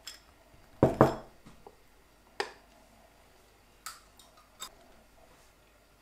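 A crisp fried chip strip crunching as it breaks: two loud sharp cracks close together about a second in, then a few fainter single cracks.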